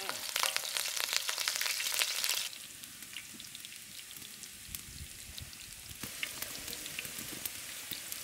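Chopped green chillies frying in hot oil and butter. There is a loud crackling sizzle at first; about two and a half seconds in it suddenly drops to a quieter steady sizzle with scattered pops.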